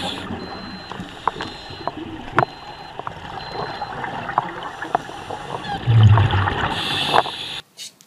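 Underwater sound of a scuba diver breathing through a regulator: a steady hiss with scattered sharp clicks, then a loud low gurgling rush of exhaled bubbles about six seconds in.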